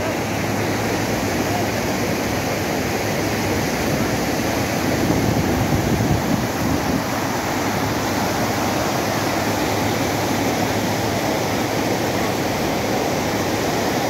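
Mountain waterfall and its stream rushing: a loud, steady noise of falling water, swelling slightly a few seconds in.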